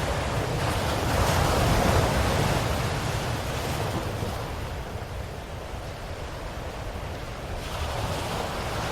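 Ocean surf: a wave swells and breaks a second or two in, washes back and fades, and the next one starts building near the end.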